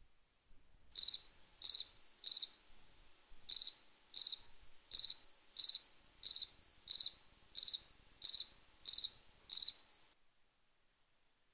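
Cricket chirping: thirteen short, evenly spaced chirps, about one and a half a second, with a brief pause after the first three.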